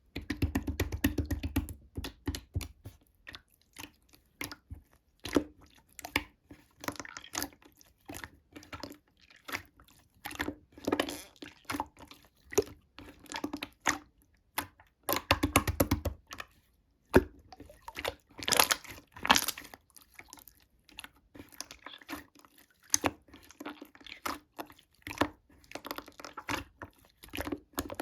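Slime being squished and worked by hand, making runs of quick wet clicks and pops in irregular bursts.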